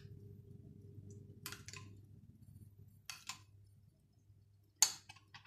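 A metal spoon clicking a few times against bowls while yogurt is spooned out, over a faint low hum. The sharpest click comes near the end.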